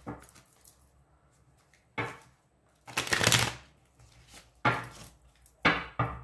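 A tarot deck being shuffled by hand and knocked together on a cloth-covered table: short sharp card slaps a second or two apart, with a longer, louder shuffle of the cards about three seconds in.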